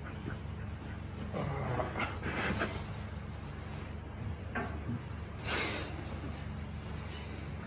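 A patient's soft non-speech vocal sounds and breathing on the chiropractic table: a few brief voiced sounds about two seconds in, a light knock, then a breathy exhale about five and a half seconds in.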